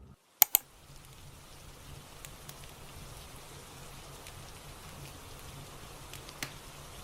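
Two sharp clicks about half a second in, then steady rain ambience with soft fireplace crackles ticking now and then.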